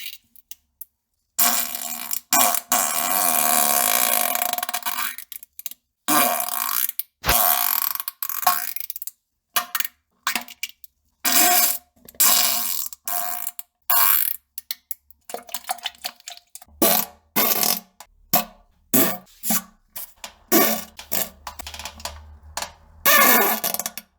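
A string of fart sound effects of varied length: one long one starting about a second and a half in, then many shorter ones that come in quicker succession toward the end.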